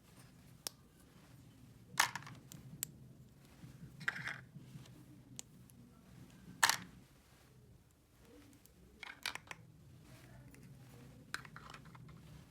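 Small plastic toy pieces being handled: a handful of separate clicks and taps, the sharpest about two seconds in and again past the middle.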